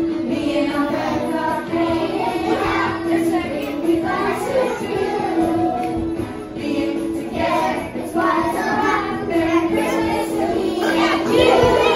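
A group of young children singing a Christmas song together over music.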